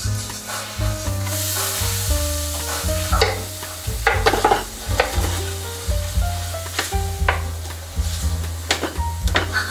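Butter and minced garlic sizzling in a large aluminium pot, with a wooden spoon scraping and knocking against the pot several times, mostly in the middle and near the end. Background music with a steady bass runs underneath.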